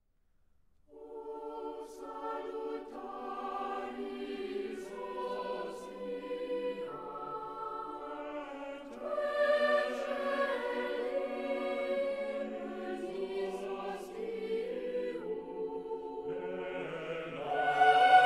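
Choral music: a choir singing slow, held chords. It enters about a second in and swells louder near the end.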